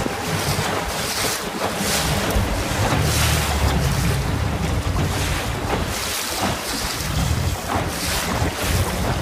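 Wind buffeting the microphone over choppy open sea, with waves splashing and a low rumble underneath; the gusts come and go every second or so.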